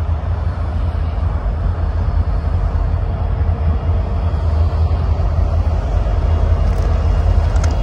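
Union Pacific diesel locomotives, three units leading an autorack train, moving past at low speed with their engines running in a steady, deep rumble.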